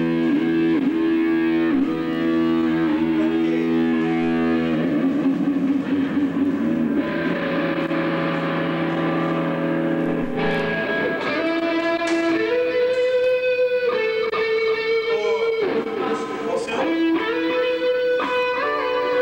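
Electric guitar played on its own with long sustained notes that bend and waver in pitch. A noisier stretch comes in the middle, then a run of held higher notes stepping up and down.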